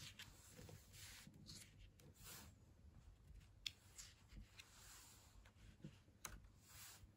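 Faint paper rustling from a booklet being opened and its pages turned by hand, with a few soft clicks and one sharper tick a little before the middle.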